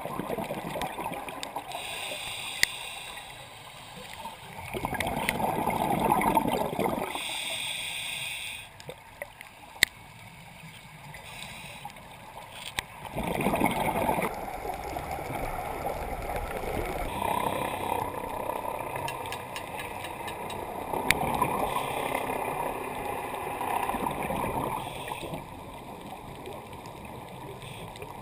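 Scuba diver breathing through a regulator, heard underwater: short hissing inhales alternate with longer rushes of exhaled bubbles, repeating every several seconds.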